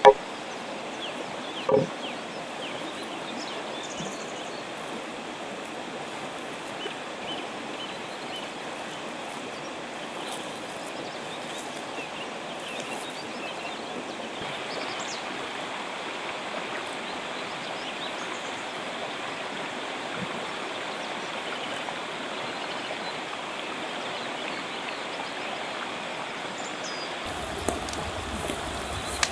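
River water flowing steadily, an even rushing sound, with a single knock about two seconds in. Near the end a wood fire comes in with a few sharp crackling pops.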